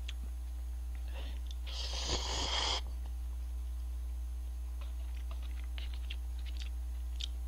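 A person slurps instant cup noodles once, for about a second, about two seconds in. Faint chewing and small clicks follow.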